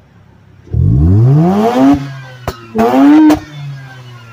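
Mazda RX-8's two-rotor Renesis rotary engine through a Fujitsubo stainless catback exhaust, heard at the tailpipe: idling, then revved, a long climbing rev about a second in that drops off sharply, and a shorter blip about three seconds in, with a few sharp cracks as the revs fall.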